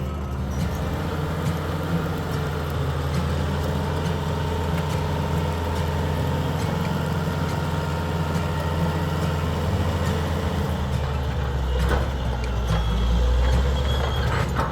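Caterpillar D8R bulldozer's diesel engine running steadily as the machine works, with a deep hum that swells a little near the end.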